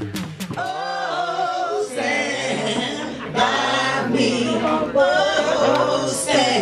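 Voices singing unaccompanied, with wavering held notes. Just before, a beat-driven electronic music track ends about half a second in.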